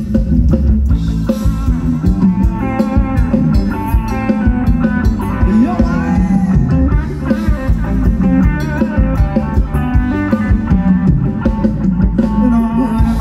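Loud, amplified band music for Thai ramwong dancing: a steady drum beat and bass under a melodic lead line, with no break.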